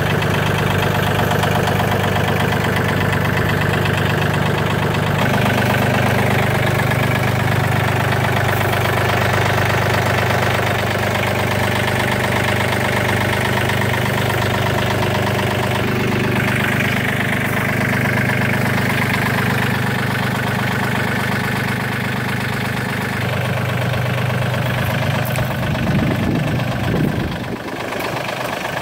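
John Deere 2520 compact tractor's three-cylinder diesel engine idling steadily.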